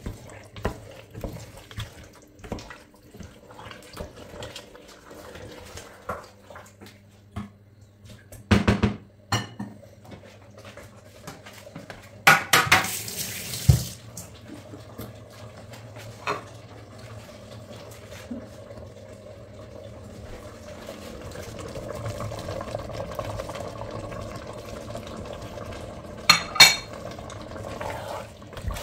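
Wooden spoon stirring and knocking in a stainless steel pot of stew, with scattered clinks of pots and utensils and a few louder clatters, over a steady low hum.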